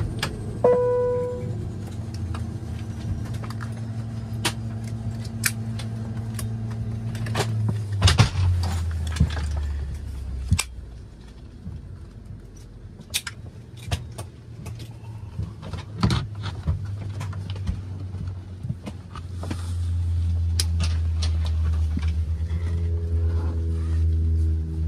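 Saab 340B's General Electric CT7 turboprop engines running at low power while the aircraft taxis, a steady low drone heard from inside the cabin, easing off for several seconds mid-way and then building again. Many small clicks and rattles in the cabin through it, and a short chime about a second in.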